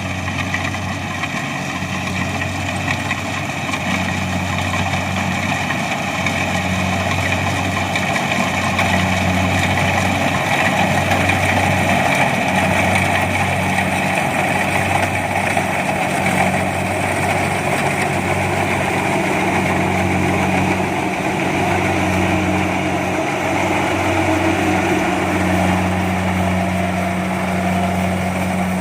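Kubota DC-70 Plus combine harvester running steadily while harvesting rice, a deep engine hum under a dense mechanical rush, growing a little louder over the first several seconds.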